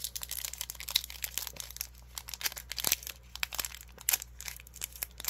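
Foil Pokémon card booster pack crinkling and crackling in many quick irregular bursts as fingers work at tearing it open; the pack is a stubborn one, hard to open.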